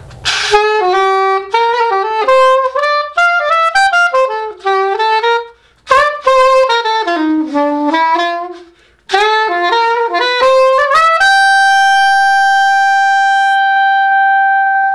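Straight soprano saxophone playing quick melodic runs in three phrases with short breaks between them, then one long held note of about four seconds at a steady pitch.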